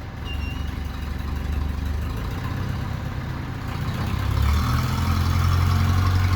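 Engine of a 1969 loader-backhoe running under work, picking up revs about four and a half seconds in.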